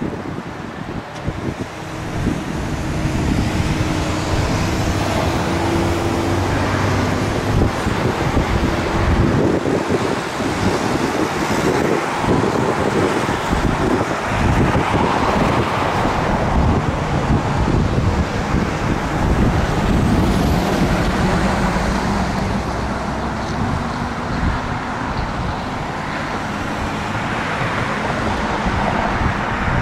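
Road traffic going by: a steady wash of passing vehicles, with the low engine hum of heavier vehicles in it. It swells about two seconds in.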